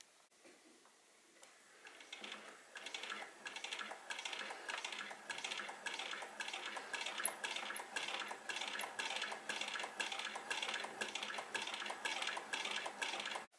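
Antique Singer 46K fur sewing machine running, its needle mechanism and feed discs making a steady metallic clicking of about three clicks a second. It starts about two seconds in and cuts off suddenly near the end.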